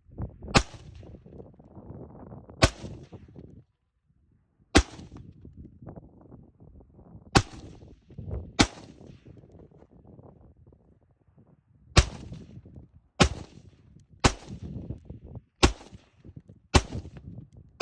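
AR-15 rifle fired single shots, about ten sharp cracks at uneven gaps of one to three seconds, each with a short echo.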